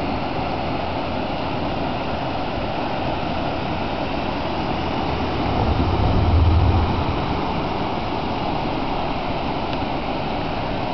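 Floodwater rushing over river rapids, a steady, even roar. A low rumble swells briefly about six seconds in.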